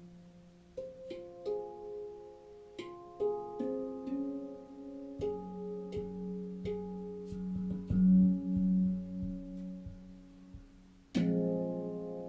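Manik handpan (steel hand-played sound sculpture) tuned to an F#2 Nordlys scale, played with the fingers: notes struck one after another, each ringing on and overlapping the next. About eleven seconds in a louder strike sets several notes ringing at once.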